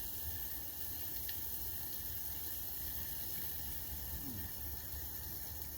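Steady hiss of a Coleman camping stove's gas burner, over a low rumble.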